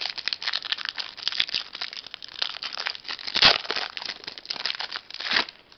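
Foil wrapper of a Triple Play baseball card pack crinkling and crackling as it is torn open and handled, with a loud crackle about three and a half seconds in and another near the end.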